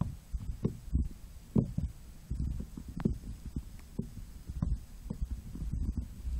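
Muffled low rumble with irregular soft thumps: handling and water noise on a cell phone's microphone sealed inside a waterproof pouch underwater.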